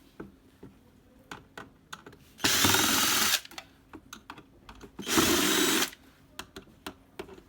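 Electric screwdriver running in two bursts of about a second each, backing out the screws that hold the machine's housing, with light clicks of handling between.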